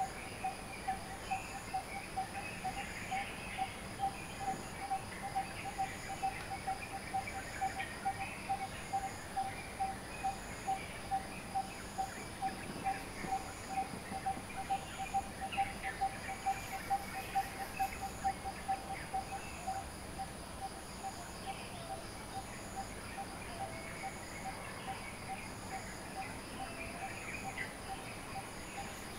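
Dawn bird chorus: one bird repeats a short low note at an even pace of about two to three a second, over scattered higher chirping from other birds. A steady high insect drone runs underneath.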